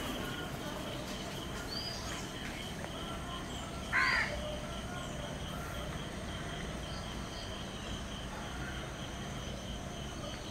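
A bird calling: one loud call about four seconds in, with a few fainter short calls before it, over a steady low background hum.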